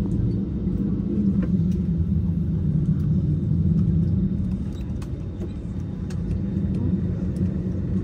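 Steady low rumble of an airliner cabin's air-conditioning and ventilation while the jet waits at the gate before departure, with a few faint clicks and knocks from the cabin.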